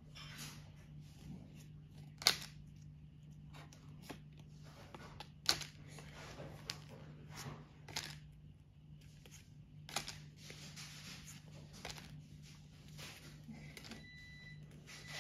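Pokémon trading cards being handled, rustling and clicking as they are slid from the stack and held up one at a time, with sharp clicks scattered through and the loudest about two seconds in and again about five seconds in. A low steady hum runs underneath.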